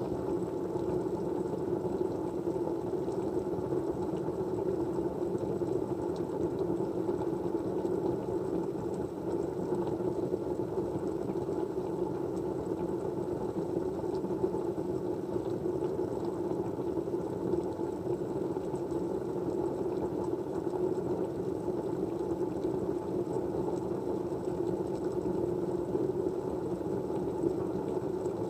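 Steady, even low rumbling noise of a white-noise study ambience, with a few faint ticks.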